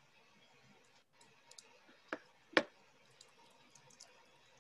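Faint clicking of computer keys over a video call, with two sharper clicks about two and two and a half seconds in.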